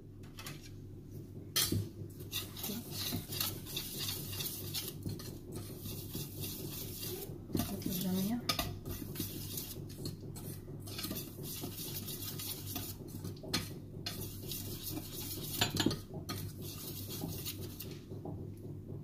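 Wire whisk stirring dry flour in a stainless steel bowl: from about two seconds in, a steady scratchy scraping with frequent small clinks of the wires against the metal, dying away near the end.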